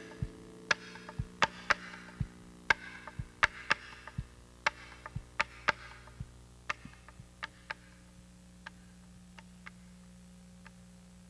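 An acoustic guitar's last chord dies away over the first second or so. Scattered sharp clicks follow at an uneven pace, thinning out and fading over a steady low hum.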